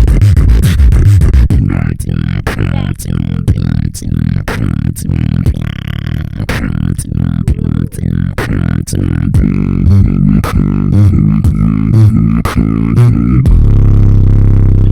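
Beatboxing: a bass-heavy routine with sharp snare-like clicks about twice a second over a steady buzzing vocal bass, ending on a long held bass note.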